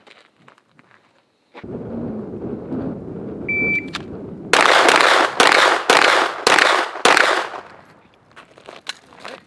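A shot timer's short electronic beep, then a 9mm Glock 17 pistol fired six times in quick succession, about two shots a second, each with an echoing tail. A steady rushing noise, like wind on the microphone, runs beneath from a couple of seconds before the beep.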